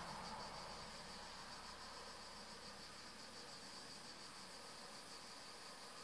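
Cicada singing: a steady, high-pitched buzz with a fast, even pulsing.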